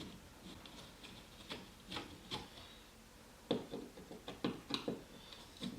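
Screws being backed out of a thermostat's wall plate with a hand screwdriver: scattered light clicks, taps and scraping of metal and plastic.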